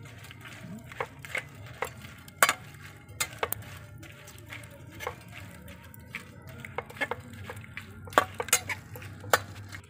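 Metal slotted spatula scraping and clinking against an aluminium pot as dried pasilla chiles are stirred while they fry in a little oil, in irregular sharp clicks and scrapes.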